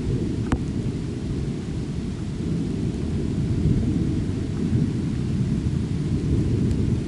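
Thunderstorm: a steady low rumble of thunder with rain, and one sharp tick about half a second in.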